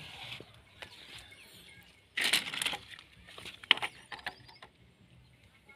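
Small plastic toy vehicles being picked up and set down on a wooden plank: scattered clicks and knocks, with one louder rattle lasting about half a second a little over two seconds in.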